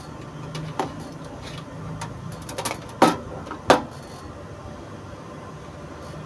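A few clicks and knocks from a digital multimeter and its test probes being handled, with two louder knocks about three and three and a half seconds in as the meter is set down on top of the inverter's case. A low steady hum runs underneath.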